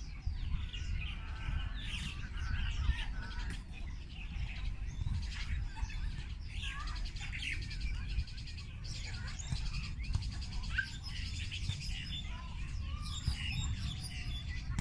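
Many birds chirping at once, short high calls and trills overlapping without pause, over a steady low rumble.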